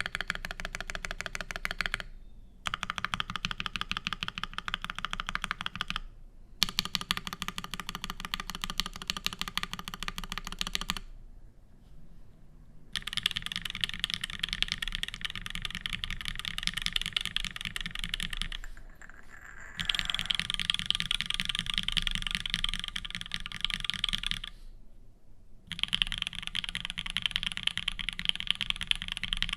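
Fast typing on an ORI CLS-1 mechanical keyboard with lubed H1 switches, an aluminium plate and GMK keycaps: runs of rapid keystrokes broken by several short pauses, the longest about two seconds.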